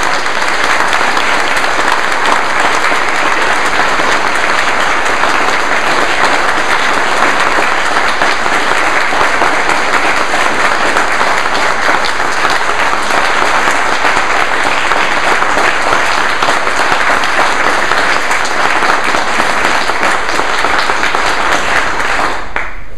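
Crowd applauding, a dense, steady clapping that cuts off abruptly near the end.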